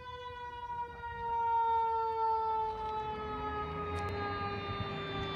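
Fire truck siren wailing in one long tone that slowly falls in pitch, with a low engine rumble growing louder from about a second in as the apparatus approaches.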